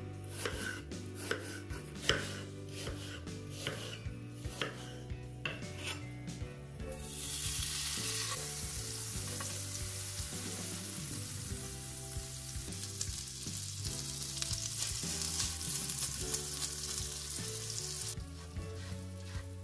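A knife slicing apple quarters on a wooden cutting board, about two cuts a second. About seven seconds in, butter starts sizzling as it melts and foams in a frying pan, stirred with a silicone spatula, and the sizzle cuts off near the end.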